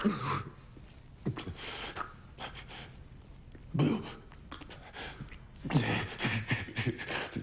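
A badly wounded man's strained gasps and groans: short breathy outbursts that fall in pitch, several of them, coming thick and fast near the end.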